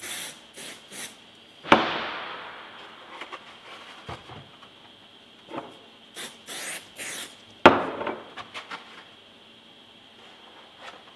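Aerosol CA glue activator sprayed onto a freshly glued joint in short bursts, three quick hisses at the start and three more about six seconds in, setting the cyanoacrylate glue. A sharp knock follows each set of sprays and is the loudest sound, with a few light clicks of plastic parts besides.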